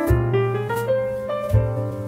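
Background instrumental music: a melody climbing note by note over a held low bass line.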